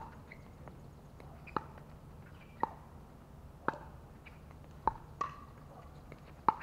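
Pickleball rally: paddles striking the plastic ball, a run of sharp pops roughly once a second.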